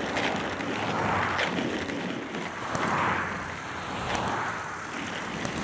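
Road traffic rushing past as a cartoon sound effect: a steady whoosh of passing cars that swells about a second in and again around three seconds.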